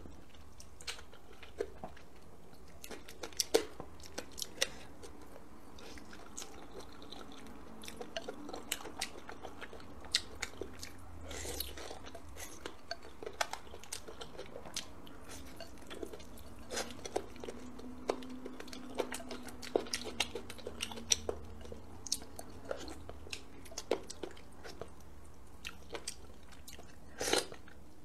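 Close-miked eating: a person slurping rice noodles and chewing braised pork, a steady run of short wet clicks and smacks, with a louder cluster near the end as she bites into a piece of meat.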